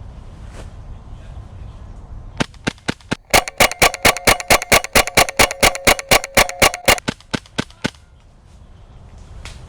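Airsoft gun firing a rapid string of shots, about five a second. It starts a little over two seconds in, is loudest in the middle stretch and trails off with a few spaced shots near the end.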